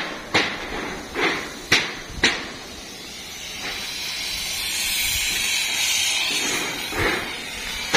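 Hammer blows, four sharp strikes in the first two and a half seconds, then a broad hiss that swells and fades over about four seconds.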